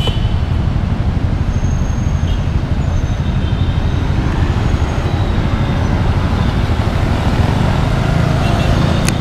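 Steady road traffic noise with a low rumble, vehicles passing continuously.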